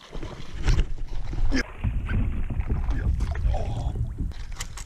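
Knocks and bumps on a fishing kayak, with a loud low rumble of handling close to the microphone.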